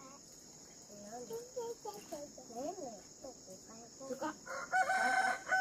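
Domestic chickens: hens clucking, then a rooster crowing near the end with a long held note. A steady high drone of insects runs underneath.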